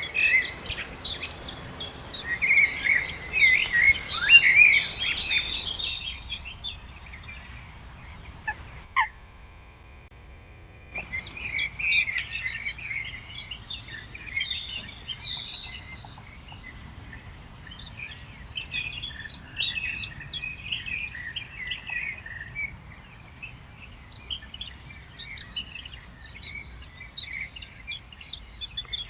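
Several birds singing and chirping in overlapping phrases. The song drops away about six seconds in, with only a single short call, and resumes densely about eleven seconds in, over a faint low steady background noise.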